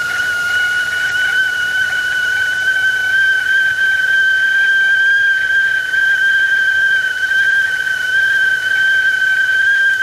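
Whistling tea kettle at the boil, its whistle holding one loud, high, steady pitch with a faint wavering.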